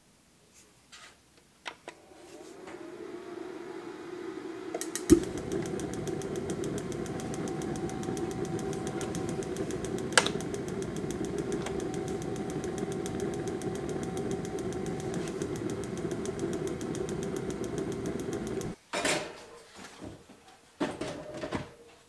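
Ryobi One+ P3810 battery-and-propane heater starting up: its fan spins up, a sharp click about five seconds in as the burner lights, then fan and flame run steadily with a rushing noise and a faint whine. The sound cuts off suddenly near the end, followed by a few knocks.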